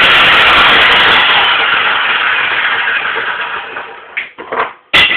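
A power tool running loudly, then winding down and fading out over a couple of seconds after it is switched off. It is followed by a few knocks, with one sharp knock near the end.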